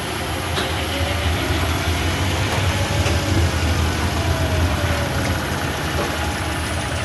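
Hardinge HLV-H toolroom lathe running steadily in its high spindle-speed range, a machine hum with a faint whine that rises slightly and eases back down partway through.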